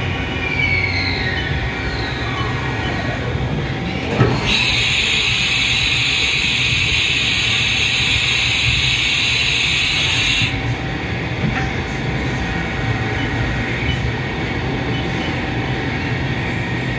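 2004 Haas VF-2D CNC vertical machining center running with a steady low hum. A falling whine plays over the first few seconds, a clunk comes about four seconds in, then a loud steady hiss lasts about six seconds and cuts off suddenly.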